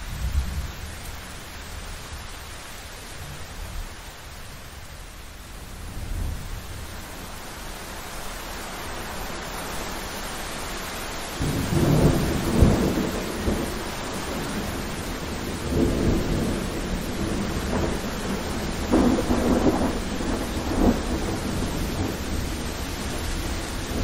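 Heavy rain falling steadily, with thunder rumbling low. The thunder swells about halfway through and rolls on in several waves.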